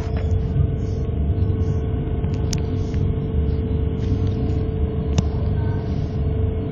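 Madrid Metro Line 12 train running through a tunnel, heard from inside the car: a steady low rumble with a constant whine, and two sharp clicks about two and a half and five seconds in.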